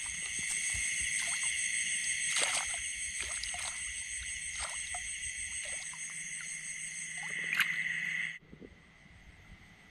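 Steady rice-paddy chorus of frogs and insects, with a few short knocks. It cuts off suddenly about eight seconds in, leaving only faint background hiss.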